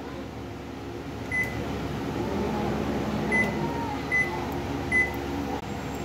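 Panasonic Inverter microwave oven running with a steady hum. Four short high beeps come from it, one about a second in and three in the second half.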